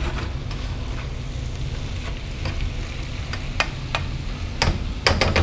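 Leafy greens sizzling and steaming in a pan on a gas stove as they cook down, a steady hiss. A utensil clicks against the pan a few times, more often near the end.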